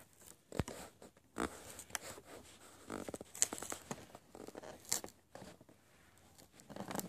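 Plastic blister packaging of a toy car box being handled: faint, irregular crinkles and clicks, with a few sharper ones.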